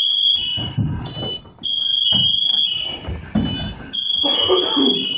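Firefighter's PASS alarm sounding: a loud, high electronic tone broken every so often by short runs of stepped, rising beeps. It is the distress signal of a firefighter separated from his company. Low bumps and rustling come and go beneath it.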